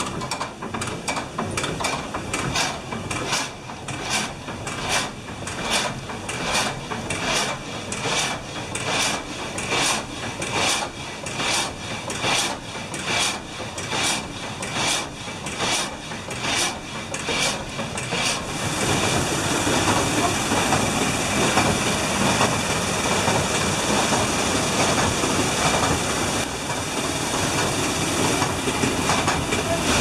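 A 1796 water-powered up-and-down frame saw cutting a pine log, its blade rasping in a steady rhythm of about one and a half strokes a second. About two-thirds of the way through, the sound cuts to steady rushing water gushing out below the mill's waterwheel into the river.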